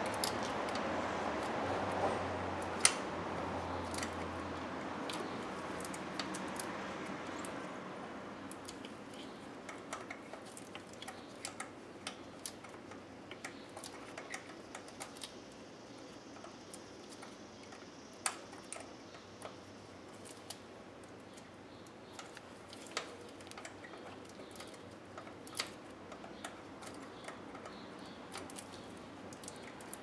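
Scattered, irregular light metal clicks and taps of a hand wrench working the bolts and terminal on a starter motor, with the sharpest clicks about three seconds in and near the middle. A steady background hiss fades out about eight seconds in.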